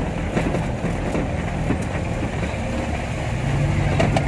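A vehicle's engine running at low speed with road noise, heard from inside the cab on a rough, narrow road, with a few sharp knocks or rattles near the end.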